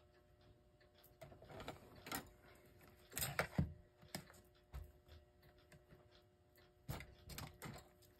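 Scattered light clicks and knocks from a handheld digital multimeter and its test leads being handled on a towel-covered bench and readied to check the continuity of a clock's repaired motor coil. The clicks come unevenly, bunched about three seconds in and again near the end.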